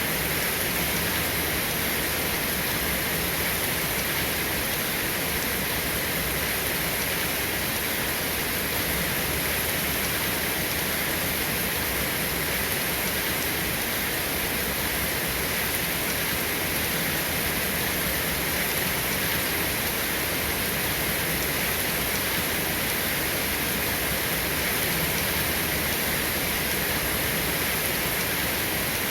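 Steady rain falling: an even, unbroken hiss with no thunder or separate drops standing out.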